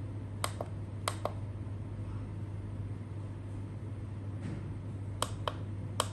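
Keys on a small electronic device clicking as they are pressed, in quick pairs about half a second and a second in, then again near the end, over a steady low hum. No beep or voice answers the presses, since this model has no speaker fitted.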